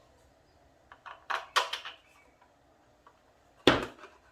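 Clicks and knocks of hard plastic parts and a screw being handled while fitting the trigger-side screw into a PVC air rifle: a quick run of clicks about a second in, then one sharp knock near the end.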